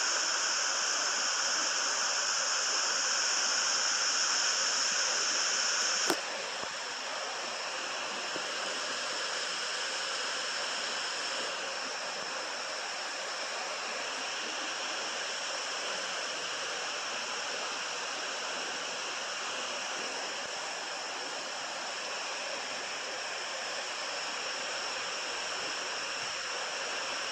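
Small waterfall: water pouring over rocks in a steady, hissing rush. About six seconds in there is a click, and the rush is a little quieter after it.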